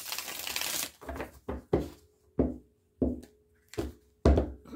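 A tarot deck being shuffled by hand: a continuous rush of cards for about the first second, then a string of separate card slaps at irregular intervals.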